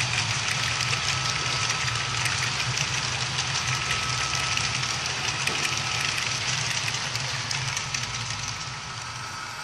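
Model freight cars rolling past on the layout track: a steady rattle of small metal wheels on rail, with rapid fine clicking and a low hum underneath. The sound drops off after the caboose has passed, near the end.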